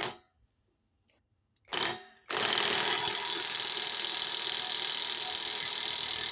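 Bauer brushless high-torque cordless impact wrench running: a short trigger blip a little under two seconds in, then a steady run of about five seconds.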